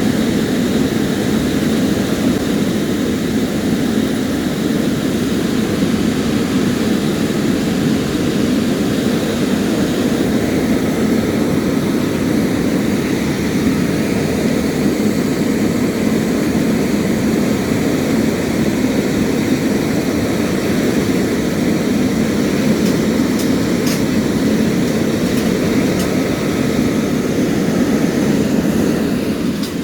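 A loud, steady mechanical drone of a running engine or motor, unchanging throughout, that cuts off suddenly at the end.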